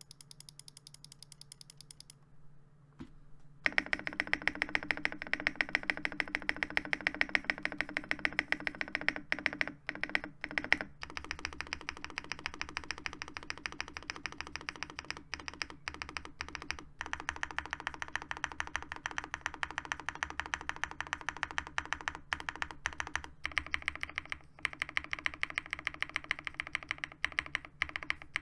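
Geonworks Frog TKL mechanical keyboard, with lubed and filmed Bluebonnet linear switches on an aluminium leaf-spring plate, being pressed rapidly and continuously. The keystrokes come in fast random runs and begin a few seconds in.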